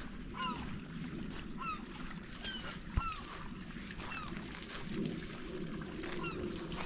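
Birds calling repeatedly: short, clipped notes, several birds at once, over a steady low noise. One sharp knock about three seconds in.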